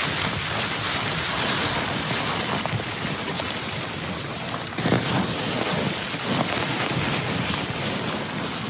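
Rain and wind beating on a Dyneema (DCF) tent, heard from inside as a steady rushing hiss, with some rustling of gear being packed.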